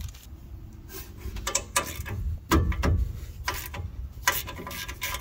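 Hand ratchet clicking in irregular spurts as the 14 mm e-brake bolt on the back of the rear brake backing plate is loosened, with a few sharper metal clicks and knocks.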